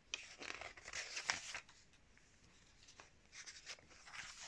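Pages of a glossy magazine being turned by hand, the paper rustling and crackling in two bouts: one in the first second and a half, another near the end.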